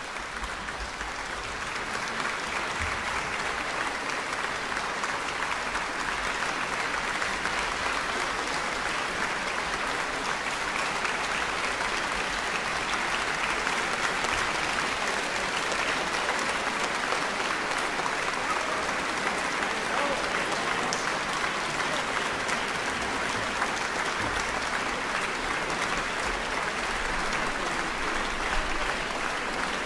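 Audience applauding in a large concert hall, the clapping building over the first couple of seconds and then holding steady.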